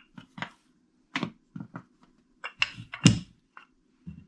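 Irregular short knocks and taps of roti dough being worked on a kitchen counter with a rolling pin and board. There are about seven in all, and the loudest comes a little after three seconds in.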